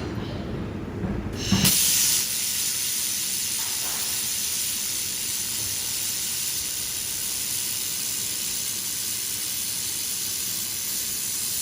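Shielding gas hissing steadily from the nozzle of a 1500 W handheld laser welding gun; it comes on suddenly, at a loud burst, about a second and a half in.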